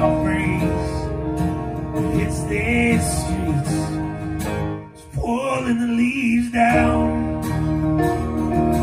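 Live fiddle and strummed acoustic guitar playing together, the music dipping briefly about five seconds in before a wavering melodic line comes back in.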